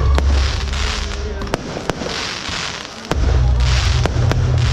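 Fireworks popping and crackling in the sky over loud show music with a heavy bass. The bass drops away for about a second and a half in the middle, then comes back in.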